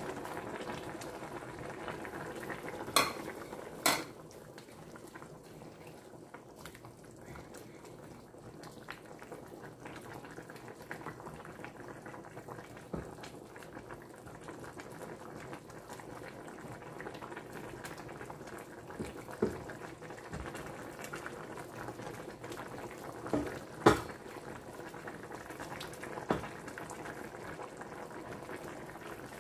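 Soup bubbling at a steady boil in a stainless steel pan, stirred with a wooden spoon, with a handful of short sharp knocks against the pan: two close together near the start, the loudest toward the end.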